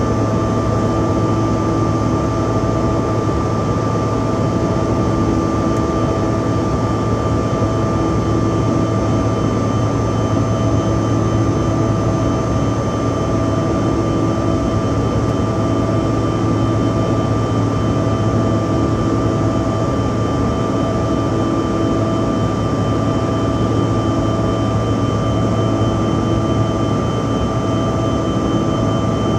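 Steady cabin noise of a jet airliner climbing after takeoff, heard from inside the cabin: an even engine and airflow drone with a low hum and several steady whining tones above it.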